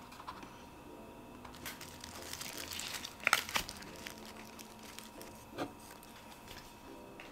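Thin plastic packaging crinkling as it is handled. The crackling builds about a second and a half in, peaks in a few sharp crackles just past the middle, and is followed by one soft knock.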